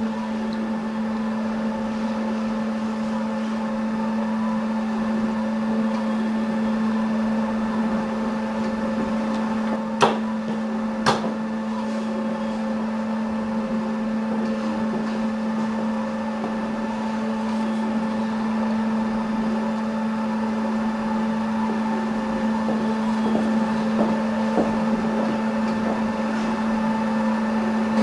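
Plus Mill S5 five-axis dental milling machine running steadily as its spindle and bur mill a zirconia disc: a constant hum with higher steady tones over it. Two sharp clicks come about ten and eleven seconds in.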